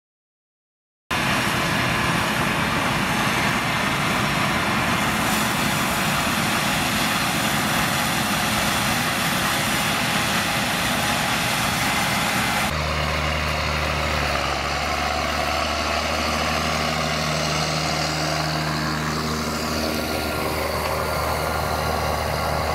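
A Claas Lexion 410 combine harvester running while harvesting, a dense steady mechanical noise, starting about a second in. About halfway through it cuts to a tractor's diesel engine droning steadily as it pulls a disc cultivator through stubble.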